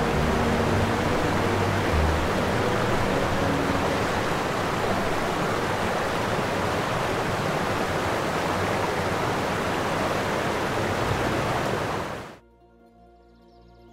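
A steady, even rushing noise with nothing distinct in it, which cuts off suddenly near the end.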